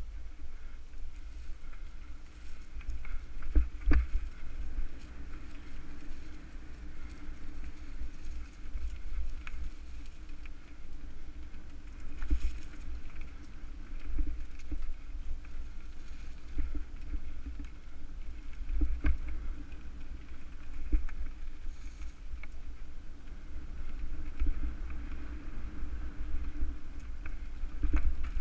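Mountain bike rolling fast down a dirt trail: a steady low rumble of tyres and wind, with knocks and rattles from the bike as it hits bumps and roots.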